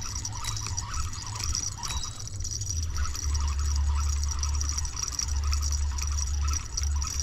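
Spinning reel being cranked steadily, reeling in line with a fish on, under a low rumble on the microphone.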